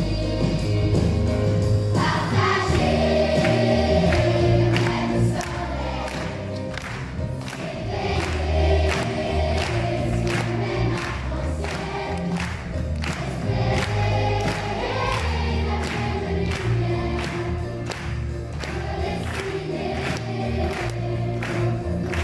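Large children's choir singing together with a live band: bass and drums keep a steady beat of about two strokes a second under the voices.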